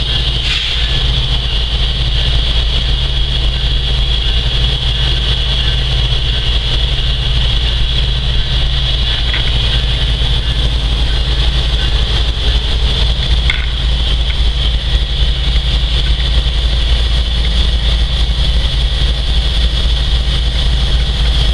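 Freight train's diesel locomotives running steadily: a continuous low drone with a steady high-pitched whine over it.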